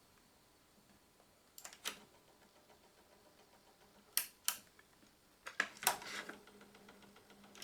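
Cassette tape transport of a Sony LBT-D107 mini hi-fi knocking while it runs: three double knocks, each pair a third of a second apart. The owner takes the knocking to come from the take-up reel drive.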